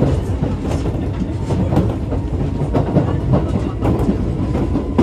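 Running sound inside a Keisei 3400 series electric train car: a steady rumble of the moving train with the wheels clicking and clattering over the rails.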